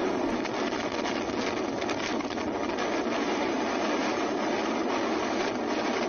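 Steady rushing noise of strong wind and churning, foaming sea water.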